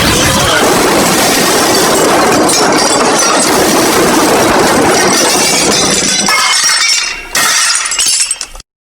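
A loud cartoon crash sound effect of shattering glass and clattering debris. It runs dense for about six seconds, thins into a few scattered hits, and cuts off abruptly near the end.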